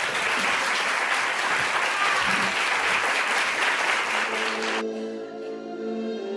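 Audience applauding. The applause cuts off abruptly about three-quarters of the way through, and music with long held notes takes over.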